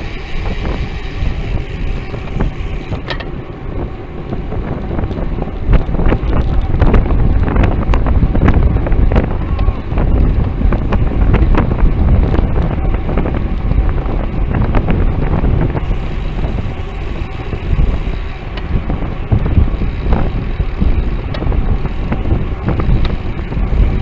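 Wind buffeting the microphone of a bicycle-mounted camera while riding at speed, over a steady low road rumble. Many short sharp clicks and knocks run through it.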